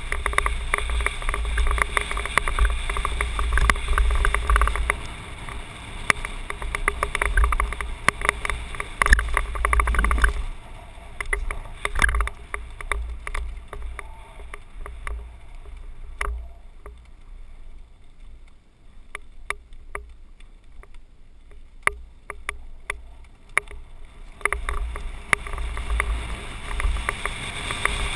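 Mountain bike riding down a dirt and gravel track, heard from a helmet-mounted camera: wind buffeting the microphone, with tyres rolling over the surface and the bike rattling. About ten seconds in it turns much quieter, leaving scattered clicks and rattles. The wind rumble comes back about twenty-four seconds in.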